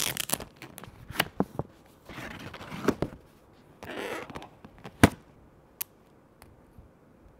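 Handling of a SIM card pack: a plastic wrapper crinkles and card and paper rustle. Sharp clicks come from the plastic SIM card as the SIM is pressed out of its frame, the loudest snap about five seconds in.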